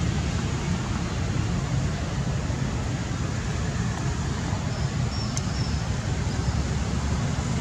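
A steady low rumble of outdoor background noise with no breaks. A little past halfway comes a brief high, thin tone with a click.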